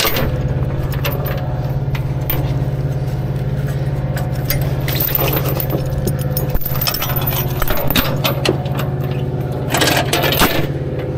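Metal tie-down hardware clinking and rattling as it is pulled through while a load is secured, over the steady hum of an idling engine. A louder scraping rustle comes about ten seconds in.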